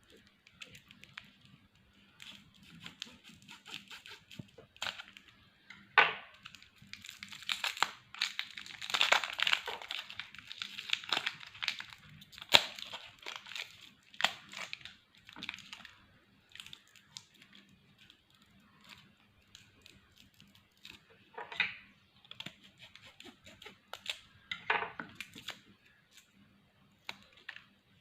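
Plastic lollipop wrappers crinkling and tearing in irregular bursts, with sharp crackles, as the candies are unwrapped. It is busiest a few seconds in.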